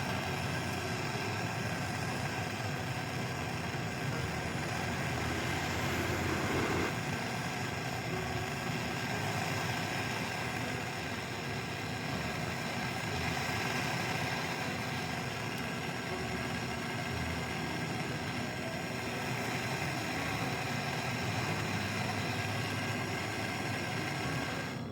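A steady mechanical drone holding several constant tones, like a motor running, unbroken throughout.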